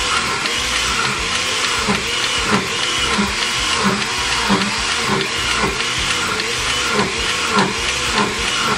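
Countertop blender running steadily, blending a thick green juice of nopal, ginger and water; a loud motor whir with a rhythmic wobble about twice a second.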